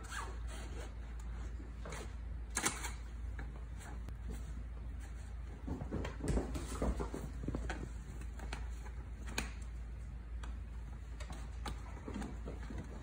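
Irregular light taps, clicks and scratches of kittens playing with toys, with a sharper click about two and a half seconds in and a cluster of knocks around six to seven seconds.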